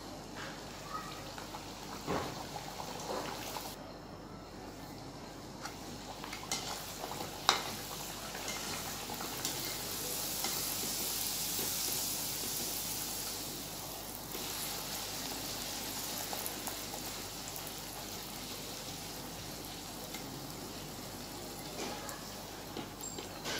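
Puris deep-frying in hot oil, a steady sizzle. It swells for several seconds after a sharp knock about seven seconds in, then eases, with a few other short knocks now and then.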